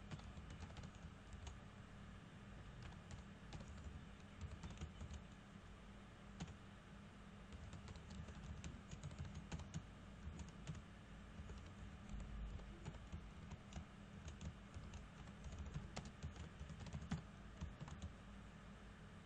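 Faint typing on a computer keyboard: irregular runs of key clicks as code is entered, over a low steady hum.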